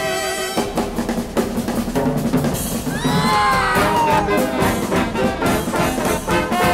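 Fast Charleston-style jazz band music with brass and drums. A drum roll opens it, and about three seconds in the horns slide downward together in a falling glissando.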